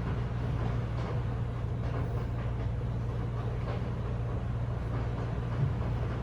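Typhoon storm heard from indoors: a steady low rumble of wind with a rushing noise of wind and rain, faint ticks here and there.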